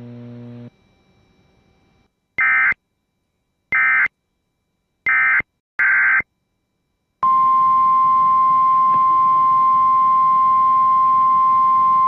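Emergency Alert System header: four short bursts of SAME digital data tones, about a second apart, followed by a single steady alert tone near 1 kHz, the NOAA Weather Radio 1050 Hz warning alarm. The alarm tone holds for about five seconds and cuts off abruptly at the end.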